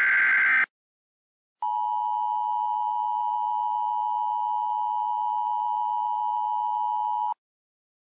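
The end of an Emergency Alert System SAME header data burst, a harsh digital screech, then about a second of silence. Then the alert's steady attention tone sounds for nearly six seconds and cuts off suddenly.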